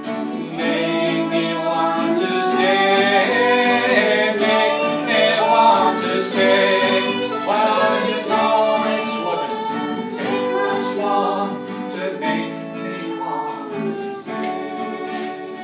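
Acoustic folk band playing an instrumental passage between verses of a ballad: a fiddle carries the melody over a strummed small-bodied acoustic guitar, with a tin whistle.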